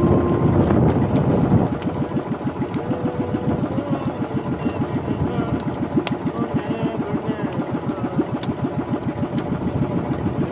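Small outrigger boat's inboard engine running with an even pulsing beat. It gets quieter about a second and a half in, as if throttled back.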